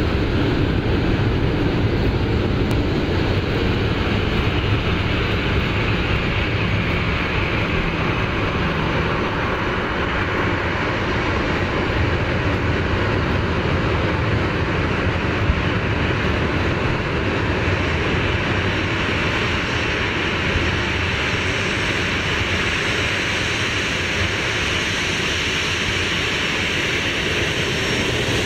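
Boeing 737-800's twin CFM56-7B turbofan engines running at taxi power as the jet rolls by, a steady continuous engine noise. Its higher-pitched part grows stronger in the second half as the aircraft turns side-on.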